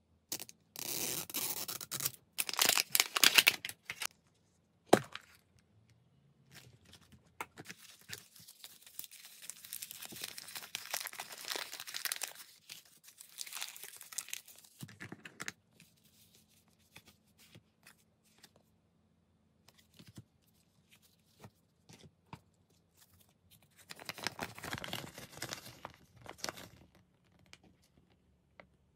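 Toy capsule packaging being opened by hand: plastic wrapping torn off in loud bursts of tearing near the start, then small foil packets crinkled and torn open, with light plastic clicks and taps in between. Another burst of crinkling comes near the end.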